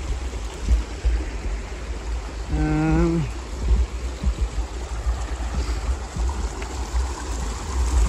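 A shallow, fast-flowing desert river rushing over rocks and gravel, under a low, uneven rumble. About two and a half seconds in comes a short pitched hum that falls at its end.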